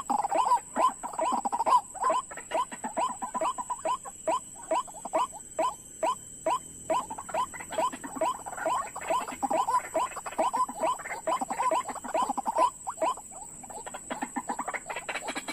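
White-breasted waterhen calls: a fast, even run of short falling croaking notes, about four a second, that breaks off briefly near the end. A faint steady high whine runs underneath.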